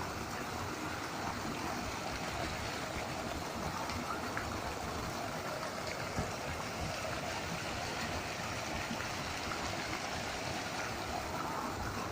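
Water pouring steadily from a waterfall's spouts: an even, unbroken rushing hiss.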